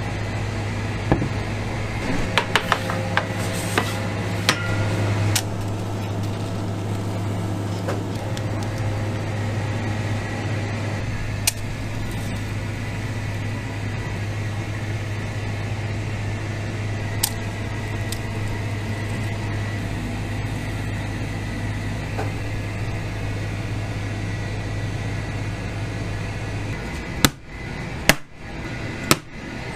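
A steady low hum of kitchen machinery, with light clinks of a spatula scraping a steel mixing bowl early on. Near the end the hum stops and there are three sharp knocks as batter-filled cake tins are tapped down on a metal baking tray to settle the batter.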